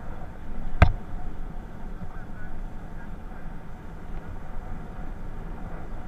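Aprilia SR 125 scooter running along the road, a steady rumble mixed with a rush of wind and road noise. A single sharp knock comes a little under a second in.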